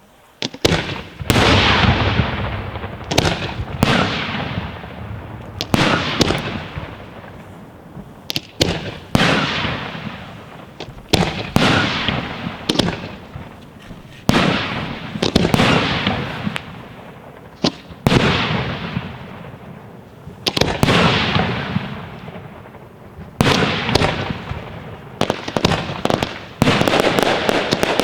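Fireworks finale: a rapid run of 3-inch aerial shells bursting one after another, each sharp bang trailing off in a long rumbling echo. Dense crackling builds near the end.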